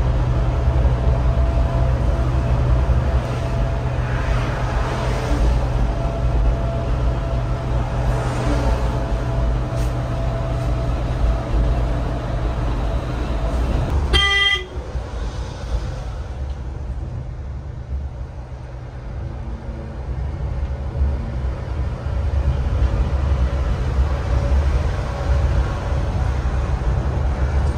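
Steady low engine and road rumble of a moving bus, with one short horn honk about halfway through.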